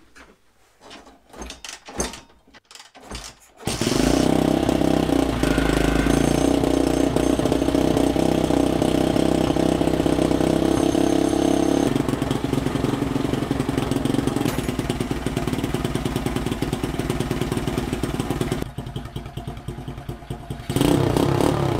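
A Honda Chaly minibike's small single-cylinder four-stroke engine, fitted with a custom star-shaped exhaust pipe, starts after a few knocks about four seconds in and then runs steadily. It eases a little about twelve seconds in, drops quieter near the end, and picks up again just before the end.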